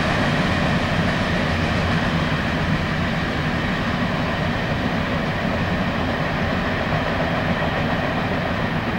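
Freight train of empty open-top hopper cars rolling steadily past, a continuous rumble of steel wheels on rail.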